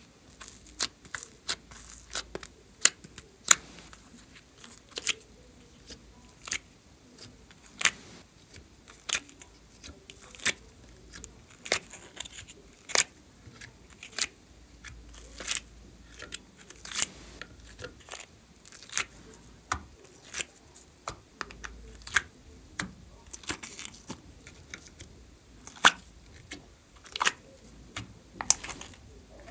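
Soft slime cubes being pried out of a clear plastic compartment case: a string of sharp, sticky pops and peeling snaps, roughly one or two a second, some much louder than others.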